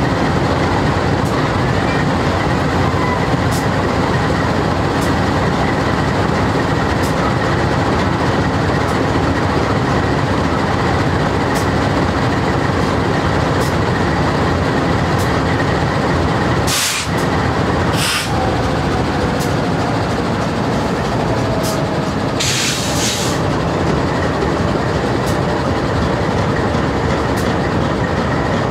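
A GE C44-9W diesel locomotive running while standing still, its 16-cylinder engine giving a loud, steady drone. Two short sharp hisses of air come about two-thirds of the way through, and a longer hiss a few seconds later.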